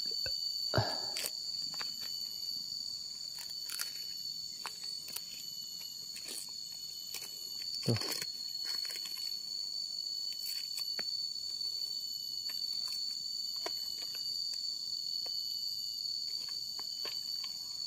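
Steady high-pitched drone of forest insects, with scattered crackles of dry leaf litter underfoot. Two louder rustles of leaves stand out, about a second in and about eight seconds in.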